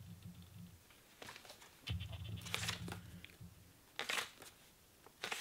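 Pages of a paperback manga rustling and swishing as the book is leafed through and handled, a few short papery swishes. A low hummed "mmm" at the start and again about two seconds in.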